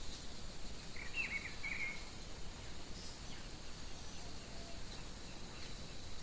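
Natural outdoor ambience: a steady high drone of insects, with a short warbled bird call about a second in and a few faint chirps after.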